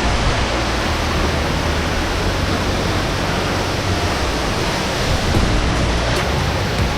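Waterfall pouring very heavily close by: a loud, steady rush of falling water.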